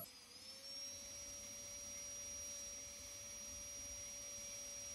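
Handheld electric micro-motor rotary tool running with a steady high whine, rising slightly in pitch at the start as it comes up to speed, its bur working a 22k gold earring.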